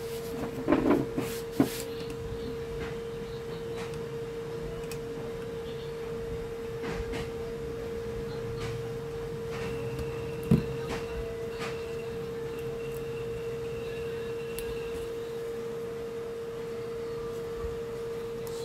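Side-cutting pliers snipping, a few sharp clicks about a second in and one more about ten seconds later, over a steady pitched hum.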